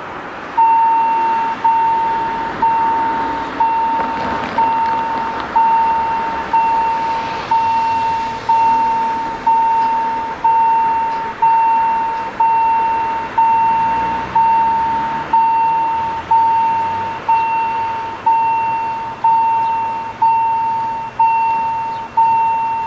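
Level crossing warning bell ringing in evenly spaced strokes, about one a second, each sharp at the start and dying away. It starts about half a second in, signalling that the crossing is closing and the barriers are coming down.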